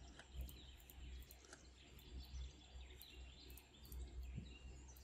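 Near silence: a faint low room hum, with faint bird chirps in the background and a few soft clicks.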